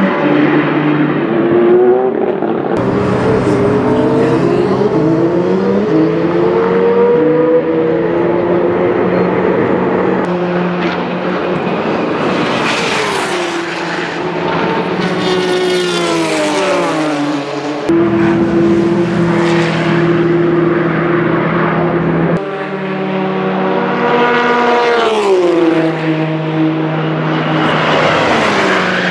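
Race car engines passing at speed, several passes edited together, among them the Audi R18 e-tron quattro's 4.0-litre V6 turbodiesel and a Porsche 911 RSR GT car. Each engine note climbs as the car accelerates and approaches, then slides down as it goes by, with abrupt changes where the shots are cut.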